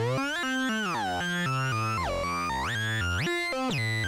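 Commodore 64 SID sound chip synthesiser playing a quick run of buzzy notes. The pitch is bent, swooping down and back up about a second in, then again lower and higher around two to three seconds in.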